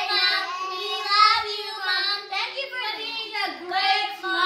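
Young girls singing together, unaccompanied, their held notes bending up and down.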